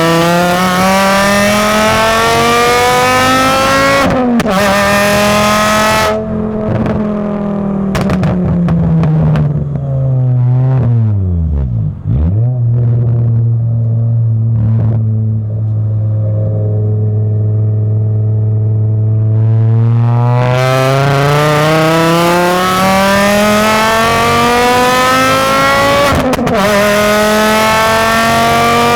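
Volkswagen MK5 Jetta racecar's inline-five engine being driven hard through the gears. The revs climb to an upshift a few seconds in, fall as the car slows, hold steady for several seconds, then climb again to another upshift near the end.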